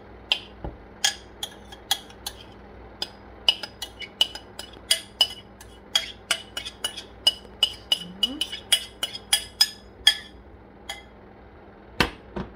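A metal spoon clinking and scraping against a glass bowl while diced apples are scraped out into a saucepan. The clinks are sharp, each with a short ringing, irregular at about one to two a second, stopping about ten seconds in, then one louder clink near the end.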